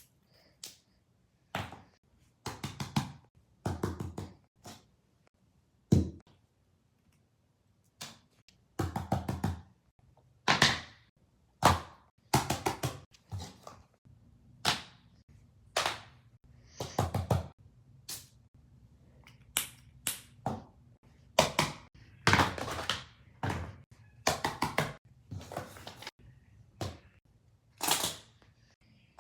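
Handmade paper fidget toys being handled: a string of short taps, thunks and crinkly scuffs, about one to two a second, with small pauses between.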